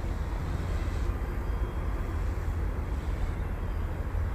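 Steady low wind rumble on the microphone, with the faint thin whine of a small electric RC helicopter's direct-drive brushless motors and rotors in flight.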